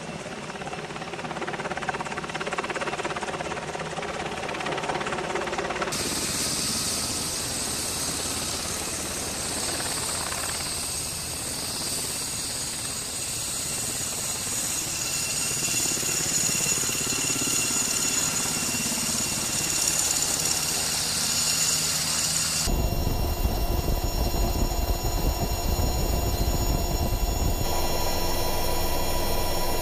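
UH-60 Black Hawk helicopter. For the first six seconds a steady engine drone with held tones. About six seconds in it gives way to the helicopter hovering just above a landing pad: a high turbine whine and rotor hiss. From about twenty-three seconds in it is heard from inside the cabin in flight: a heavy low rumble with steady tones.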